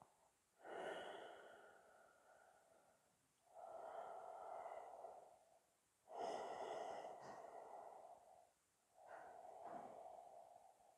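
Slow, faint ujjayi breathing through a narrowed throat: four long breaths, each two to three seconds, with short pauses between.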